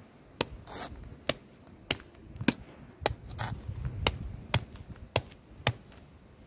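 A large kitchen knife chopping into the hard, spiky husk of a durian: about nine sharp strikes, roughly one every half second to second.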